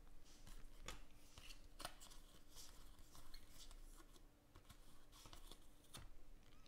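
Faint flicks and rustles of a stack of baseball trading cards being thumbed through by hand, over a faint steady hum.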